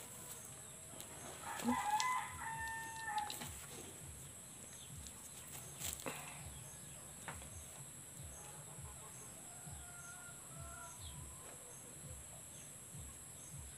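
A faint, drawn-out animal call held on one steady pitch for about a second and a half, starting about two seconds in, with a fainter, shorter one around ten seconds in.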